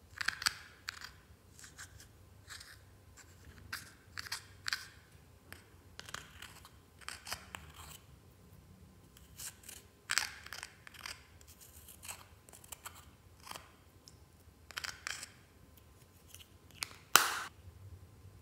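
Metal spatula tool scraping and chipping pressed pink powder makeup out of a plastic compact: irregular short scratchy, crumbly strokes, with one sharper, louder click near the end.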